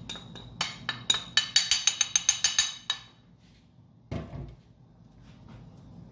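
A bowl knocked rapidly against the rim of a stainless steel pot to empty the last of the flour: about fifteen sharp, ringing clinks, roughly five a second, over two seconds. One duller knock follows about four seconds in.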